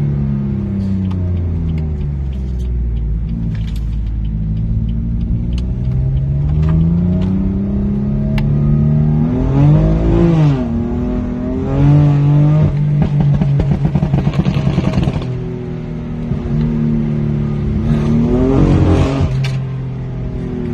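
BMW M4 F82's twin-turbo straight-six in Stage 2 tune, its revs climbing and dropping several times. Sharp pops and crackles from the exhaust come as the revs fall off, with a fast crackling stretch midway.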